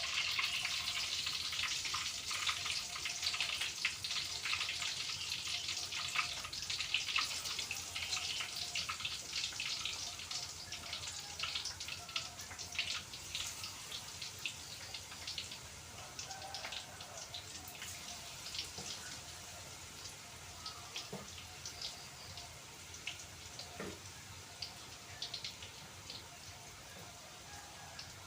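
Hot oil sizzling and crackling in a frying pan, with many small pops. The sizzle dies down gradually.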